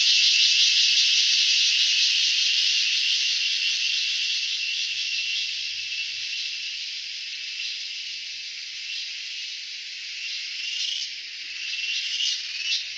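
Forest insects shrilling in a dense, steady, high-pitched chorus with a fine rapid pulse. It eases off around the middle, and separate short chirps come in near the end.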